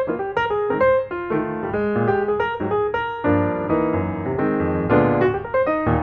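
Background piano music: a continuous run of notes with chords, without speech.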